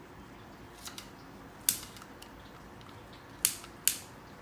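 Butane torch lighter's ignition clicking: four sharp snaps as the button is pressed, the last two close together near the end. The torch is low on butane, with only a little gas left.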